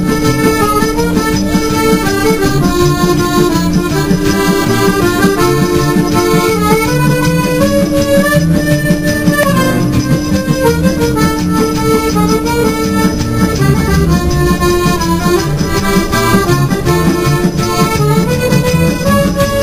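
Accordion playing a melody over a steady held low note; the held note drops out about two-thirds of the way through while the tune carries on.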